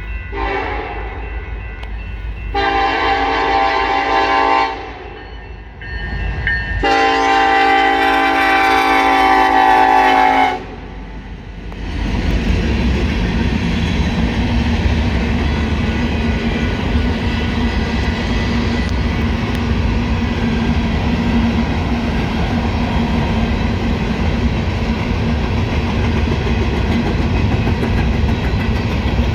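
Nathan K5LA five-chime train horn blowing three blasts: a short one, then two long ones, the last the longest. After that the EMD diesel locomotive and its train rumble past steadily.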